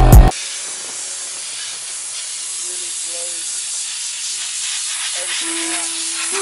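Background music cuts off right at the start, giving way to a steady hiss of compressed air from a hand-held air blow gun blowing dust out of a vehicle's floor carpet and door sill.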